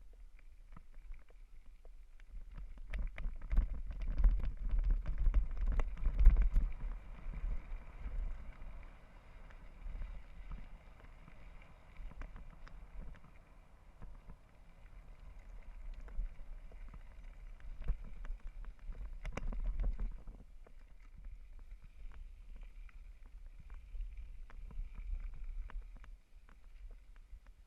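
Mountain bike riding over a rough off-road trail: wind rumbling on the microphone, with rattling clicks and knocks from the bike over bumps. It is loudest in two stretches, one early on and another about two-thirds through.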